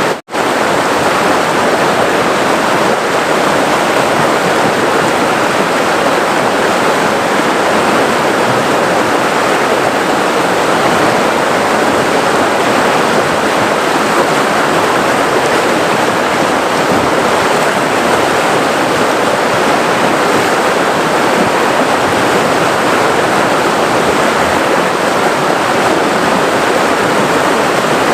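Forest river flowing, a steady dense rush of water with no letup, broken only by a split-second drop-out just after the start.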